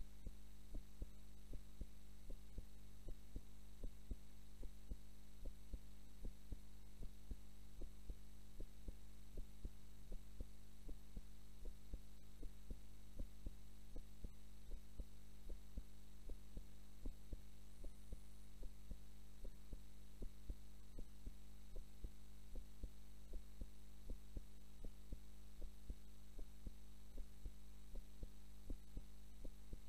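A woman's heartbeat picked up through a microphone against the chest, beating steadily and evenly at a resting pace as she sleeps. A steady low electrical hum runs underneath.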